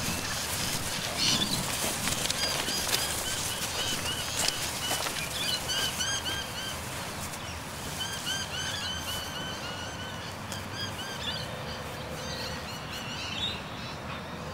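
Birds chirping: many short, arched chirps repeated in quick runs, heaviest in the second half, over a steady outdoor background.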